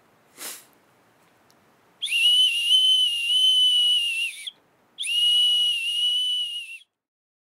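Maienpfeife, a whistle made from fresh tree bark, blown in two long, high notes of nearly steady pitch, each sagging slightly at its start and end, the first about two and a half seconds and the second about two. A short breathy puff comes first.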